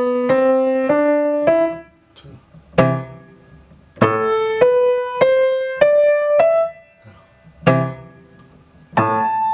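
Grand piano played slowly in even notes: short phrases of about five notes stepping upward, each followed after a brief pause by a single deeper note.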